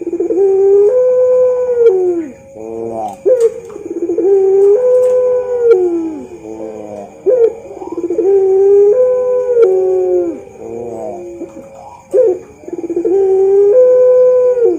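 A puter pelung, a long-voiced variety of the ringneck (Barbary) dove, cooing. It gives four long coos, each opening with a short rising note and then held on a steady pitch for about two seconds.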